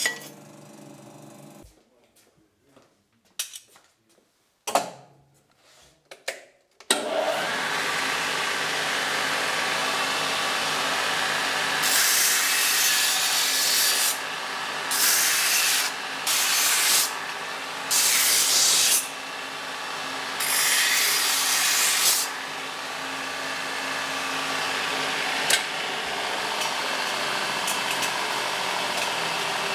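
A few light clicks of small sheet-steel pieces being handled, then about seven seconds in a bench belt sander starts and runs steadily. Five times between about 12 and 22 seconds a harsh grinding hiss rises as small steel pieces are pressed against the abrasive belt to finish them before painting.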